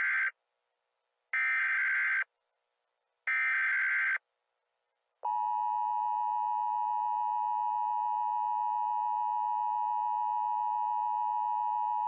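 Emergency Alert System tones for an Emergency Action Notification: three short screeching bursts of SAME header data, about a second apart, the first already underway. About five seconds in, the steady two-tone EAS attention signal starts and holds.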